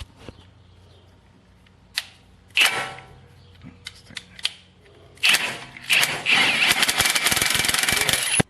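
Impact wrench hammering on a suspension bolt: a short burst a little over two seconds in, then a longer run of rapid hammering from about halfway that cuts off suddenly.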